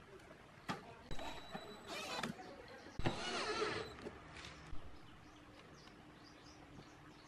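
Cordless drill driving screws into a metal amplifier panel in two short runs of about a second each, the second louder. A few sharp clicks of handling come before and after.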